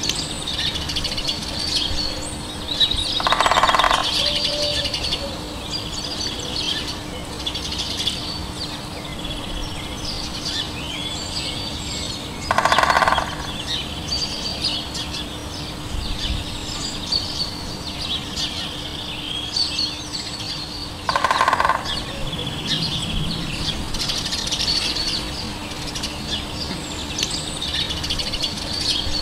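Woodpecker drumming: three short rapid rolls on wood, each under a second and about nine seconds apart, the loudest sounds here. Many small songbirds chirp and twitter throughout, over a faint steady hum.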